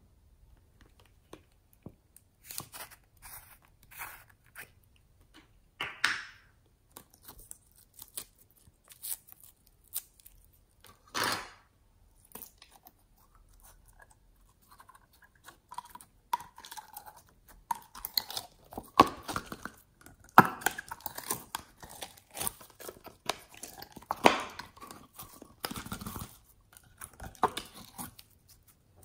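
Clear slime being worked out of a plastic bottle into a plastic tub: irregular crackles, clicks and wet squelches, sparse at first and busier from about halfway through.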